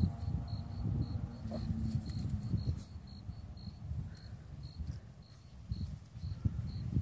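A cricket chirping: short, high chirps at one pitch, about three a second, over a louder low rumble of noise on the microphone.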